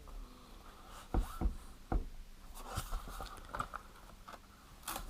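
Hands handling a watch's presentation box and packaging: a few soft knocks and clicks, the loudest a little over a second in, with light scratching and rustling between them.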